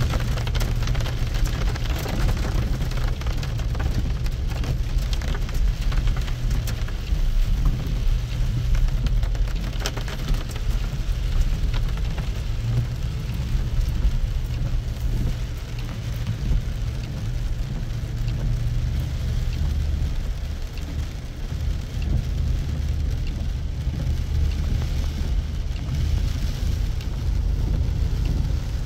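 Rain falling on a car's windshield and roof, heard from inside the cabin, over a steady low rumble of the engine and tyres on a wet road.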